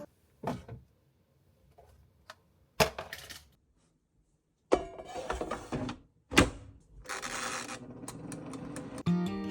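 Handling of iPad accessories: a few sharp plastic clicks and taps, with stretches of rustling between them.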